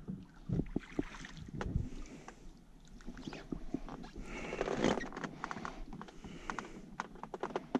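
Scattered knocks and clicks in a small rowboat as the oars are lifted out of the water and the net float and gear are handled against the hull.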